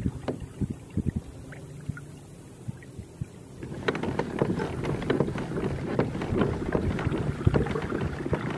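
Water splashing and gurgling along a pedal-driven Hobie kayak as it moves, with scattered light knocks. About four seconds in, the water noise gets louder and busier as the kayak speeds up.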